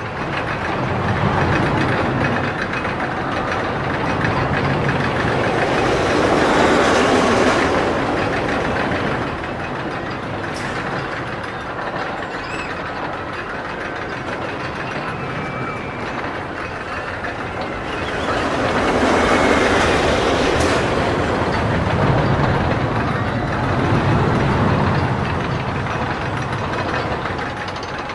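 Roller coaster train running along its track, a continuous rattling rumble of wheels on rails that swells louder twice as the cars pass by.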